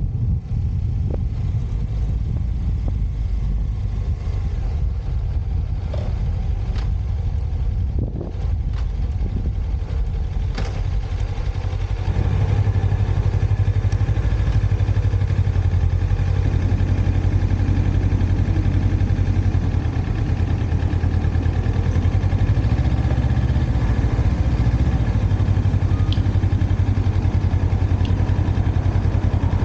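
Motorcycle engine idling steadily, with a few clicks and knocks in the first ten seconds; the engine grows louder about twelve seconds in and stays so.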